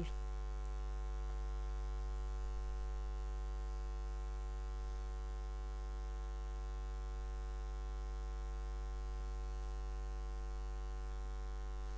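Steady electrical mains hum and buzz: a low drone with many evenly spaced overtones, holding level throughout with nothing else over it.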